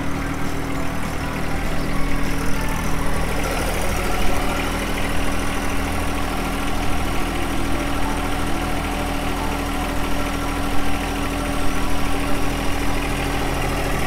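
A small John Deere tractor's diesel engine running steadily at idle.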